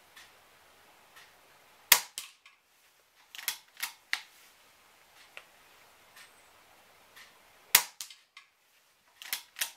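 Weihrauch HW110 pre-charged pneumatic air rifle fired twice, about six seconds apart. Each sharp shot is followed by a quick run of clicks as the cocking lever is drawn back and pushed forward to index the next pellet from the magazine.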